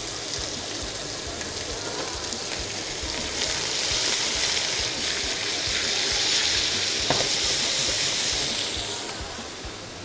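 Sliced sausage frying in a pan, giving a steady hissing sizzle. The sizzle grows louder about three seconds in and eases off near the end.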